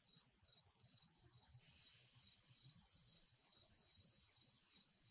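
Insects in the grass: a high chirp repeating about three times a second. About one and a half seconds in, a louder steady high buzz joins it, breaks off for a moment past three seconds, then resumes.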